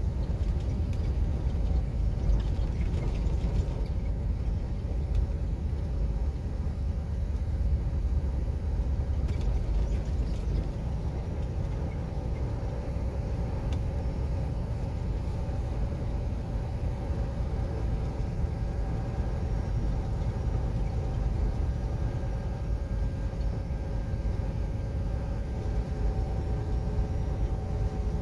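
Low, steady rumble of a semi truck driving slowly on a snow-packed street, heard from inside the cab: engine and tyre noise together. A faint steady whine comes in during the second half.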